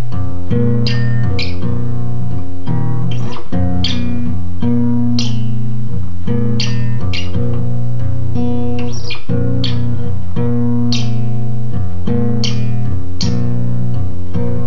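Acoustic guitar played as a solo instrumental passage: held chords with strummed and picked strokes coming about once a second, the chords changing throughout.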